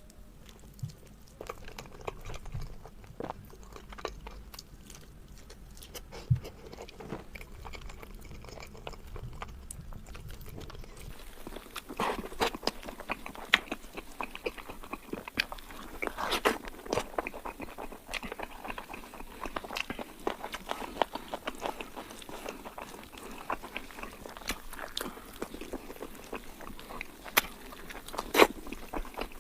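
Close-miked eating of Kayseri yağlama: chewing and biting with many short wet clicks and smacks. About eleven seconds in, a low hum drops out and the chewing becomes louder.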